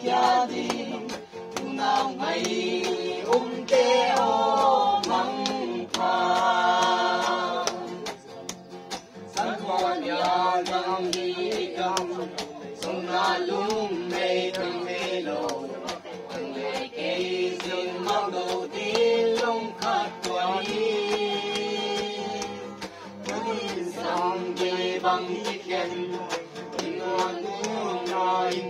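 A group of men and women singing a song together in chorus, with sharp, regular taps keeping the beat.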